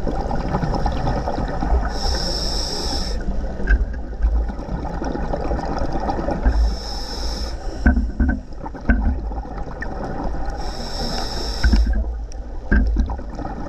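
Scuba diver breathing through a regulator underwater: three inhalations, each a hiss about a second long, roughly every four seconds, with gurgling, bubbling exhalations in between.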